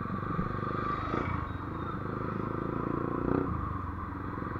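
Motorcycle engine running as the rider moves along the road, its firing pulses steady with small changes in pace about a second in and again near the three-second mark.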